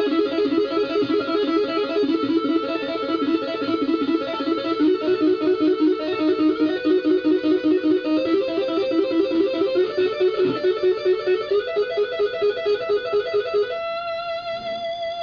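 Electric guitar played with two-hand tapping at full speed: a rapid, even stream of three-note triad arpeggios that shifts to a new position every few seconds, ending on a single sustained note near the end.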